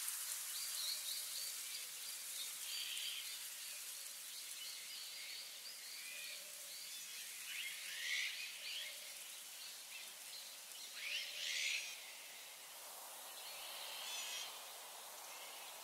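Woodland birds calling and singing over a steady high hiss: a run of short, quick notes in the first several seconds, then louder song phrases about eight, eleven and fourteen seconds in.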